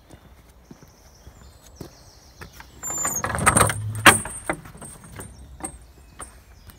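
A wooden field gate's metal latch being handled: a rattle of about a second ending in a sharp clack about four seconds in, with a high squeak, then a few small clicks.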